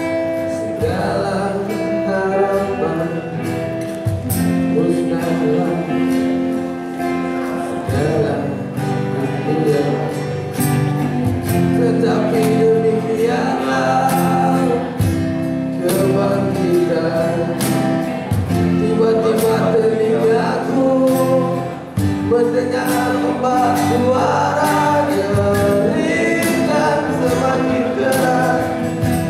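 Live acoustic band playing a song: acoustic guitar strumming, electric bass and cajón beats under singing.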